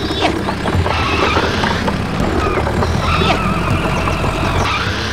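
Tractor engine sound running steadily.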